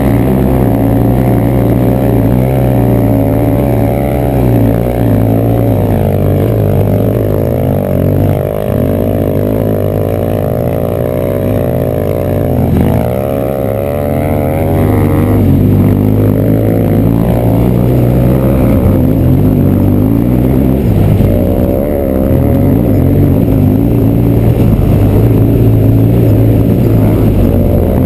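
Motorcycle engine running under load up a dirt climb, its pitch rising and falling with the throttle for several seconds near the middle, then steady again.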